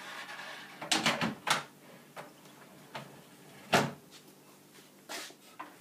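A drawer being slid into a bunk bed's staircase step unit. There is a short sliding rasp, then a cluster of knocks about a second in, one loud knock a little past halfway and a lighter one near the end as the drawer is pushed home.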